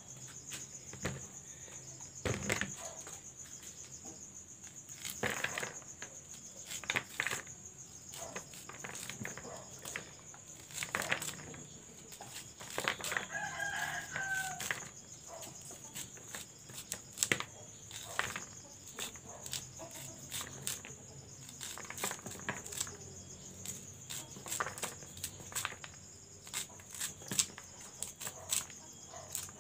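Small kitchen knife scraping and slicing kernels off a fresh corn cob in irregular strokes, the kernels pattering into a plastic basin. A chicken clucks about halfway through.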